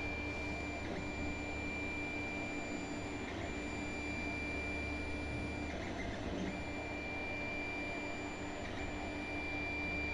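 Creality Ender 3D printer running a print: its motors whine in steady high tones that cut out and change every one to three seconds as the moves change, over a steady low hum.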